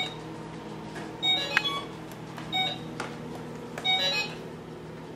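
Electronic tune from a Fisher-Price Shake 'n Go Speedway toy track: a short phrase of bright beeping tones repeating about every second and a half over a steady low hum.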